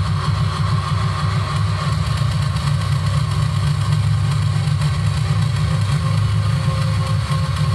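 Industrial noise from a Korg Volca Sample sampler played live through Boss ODB-3 bass overdrive, TC Electronic Flashback delay and Hall of Fame reverb: a steady, loud, distorted low drone with a grinding noise above it and a faint thin high tone.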